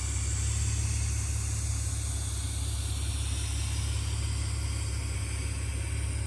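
Car driving along: a steady low engine and road rumble with an even hiss of tyre and wind noise.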